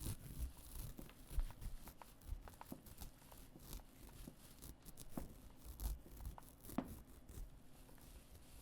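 A foley sound effect being performed: irregular small crackles, clicks and rustles, like something being crumpled or torn, with a sharper click about a second and a half in and another near seven seconds.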